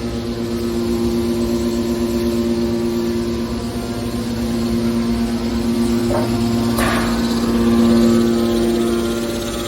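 Small hydraulic aluminum can baler running, its electric motor and hydraulic pump giving a steady hum with a constant whine. Two short knocks come a little past six seconds in, and the sound briefly swells about eight seconds in, as if under load.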